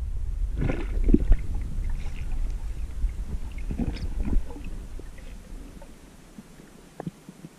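Water sloshing and splashing against the camera, with a low rumble and a few sharp knocks, dying down after about five seconds.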